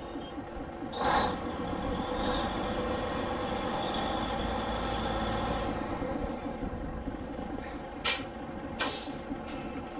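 Heavy engine running steadily, with a long hiss of compressed air for about five seconds starting a second or so in, then two short, sharp air hisses near the end.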